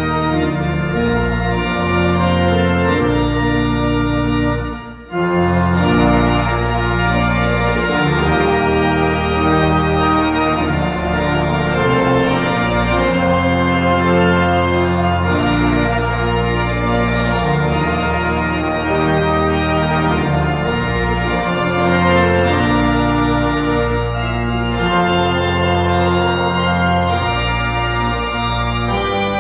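Organ playing a hymn in sustained chords, with a walking bass line in the pedals. The music breaks off for a moment about five seconds in, between verses, then goes on.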